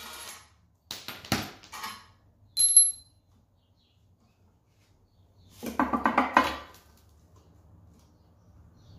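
Metal tools and engine parts clinking and clattering as they are handled: a few light knocks, a sharp ringing clink about two and a half seconds in, then a louder rattling clatter of metal around six seconds in.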